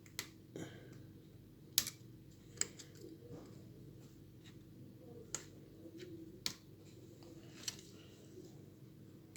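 Sharp little clicks, about seven spread irregularly over several seconds, of a pry tool working the iPhone 7 Plus display cable connectors loose from their sockets, over a faint steady hum.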